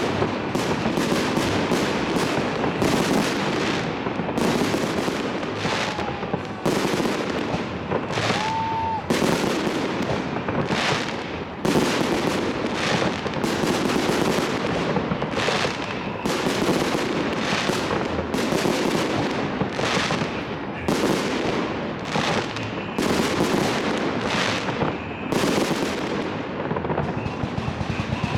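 Fireworks display: aerial shells bursting one after another with sharp bangs and crackling, with barely a pause between them. A brief whistle comes through about eight seconds in.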